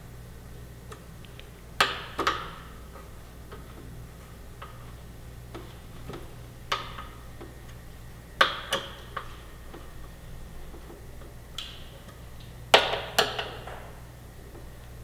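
Sharp metal clicks and clinks of tools and screws against the fuel cap base and tank ring of a motorcycle, in irregular clusters of two or three, some with a short ring after them. A steady low hum runs underneath.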